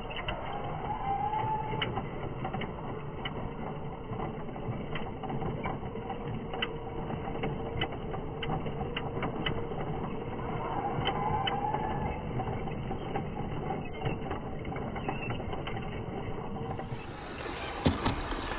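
Small electric motor and gearbox of a 1:16 scale RC truck whining steadily as it drives, with a couple of brief rises in pitch and scattered sharp clicks. A few louder knocks near the end.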